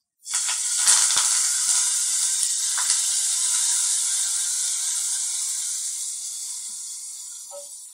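Hot tempering oil poured from a small tadka ladle onto curry leaves on a tamarind gravy in a clay pot: it sizzles at once, loudest about a second in, then slowly dies away over several seconds. A few light knocks come in the first three seconds.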